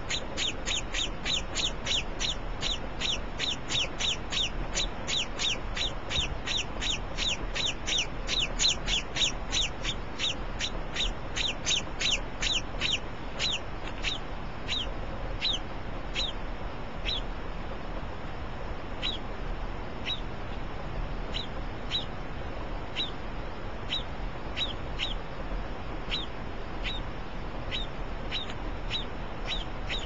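A young, partly feathered pet chick cheeping over and over: short, high, falling chirps about three a second, thinning out about halfway through to roughly one a second.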